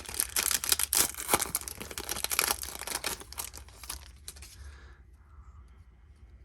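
A hockey card pack's wrapper being torn open and crinkled in the hands: dense crackling rustle that fades out about four and a half seconds in, leaving only faint handling ticks.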